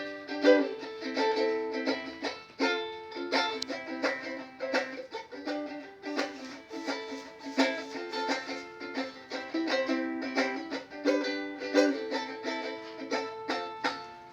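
Ukulele being strummed, a run of chords in a steady rhythm with the chord changing every second or so.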